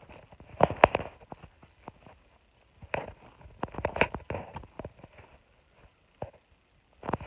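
Irregular clusters of light knocks and clicks in three bursts, with a faint steady high tone underneath.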